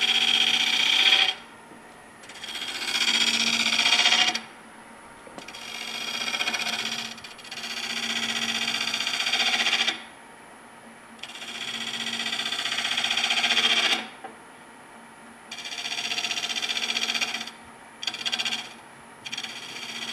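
Bowl gouge cutting into a wood bowl blank spinning on a lathe: a series of about seven rasping shaving passes, each lasting one to three seconds, with short pauses between them. A low steady hum continues through the pauses.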